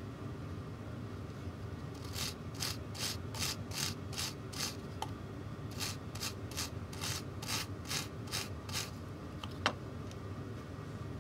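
Brass-bristle scratch brush scrubbing a small brass-tube and steel-wire chain against a wooden bench pin, in quick back-and-forth strokes about two and a half a second, with a brief pause midway. A single sharp click near the end.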